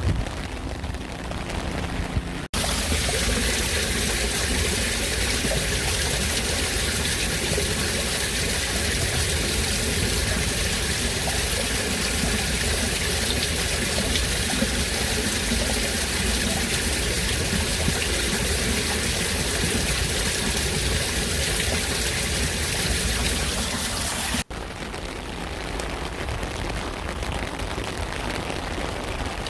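Steady rain. About two seconds in it cuts abruptly to a louder, denser downpour with water pouring and trickling, and near the end it cuts back to lighter rain.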